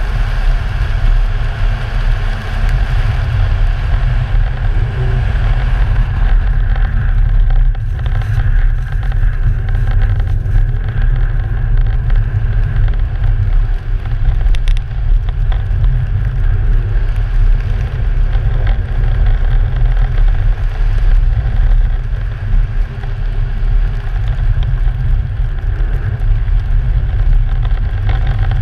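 Audi car driving fast on a snowy ice track, heard from a camera mounted outside the body: a steady, heavy low wind rumble on the microphone over the engine and the tyres on snow.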